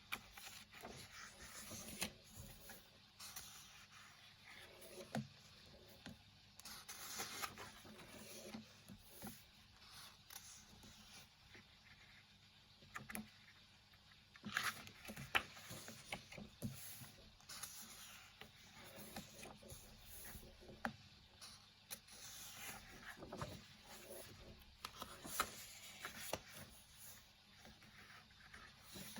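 Pages of a paperback colouring book being turned and handled: soft paper rustles and light taps at irregular moments. Under them, the faint steady hum of a turtle tank's pump.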